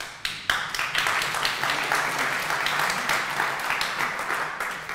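Audience applauding: a few scattered claps swell into full applause about half a second in, then die away near the end.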